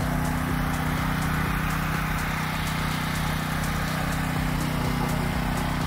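Champion 200929 portable generator's gasoline engine running at a steady speed with an even drone, just after a remote start.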